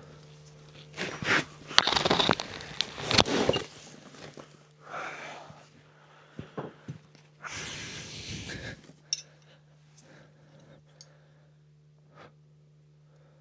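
Irregular rustling, scraping and crunching of parts and tools being handled in bursts, followed by a few sharp clicks. A steady low hum runs underneath.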